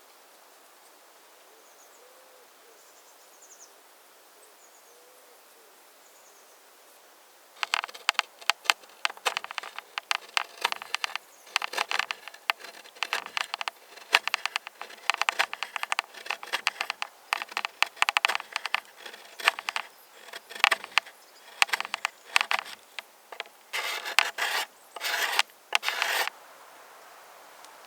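Knife blade scraping wood in quick, repeated rasping strokes, coming in groups. The scraping starts several seconds in and stops near the end.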